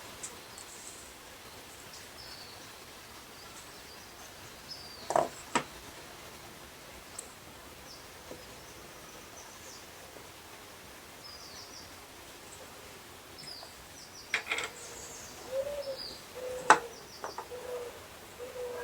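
Small birds chirping now and then over a steady background hiss, with a few sharp knocks from objects being handled, the loudest near the end.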